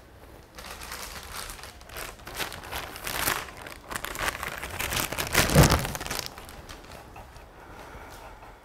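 Crinkling and rustling, building to a loud crunch about five and a half seconds in, then dying away.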